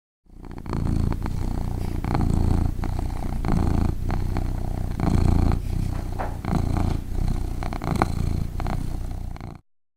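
Domestic cat purring close to the microphone, a low rumble that swells and eases roughly once a second with its breathing, with a few small clicks; it starts and cuts off suddenly.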